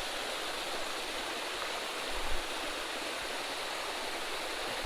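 Steady rush of a small creek's water flowing over a little waterfall.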